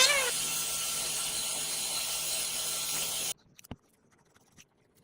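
Power tool running with a steady hiss, cutting off suddenly about three seconds in, followed by near silence with a few faint clicks.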